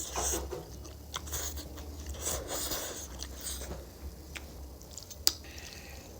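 Close-miked eating of spicy Korean instant noodles: chewing and mouth sounds in stretches, with scattered clicks and one sharp click about five seconds in.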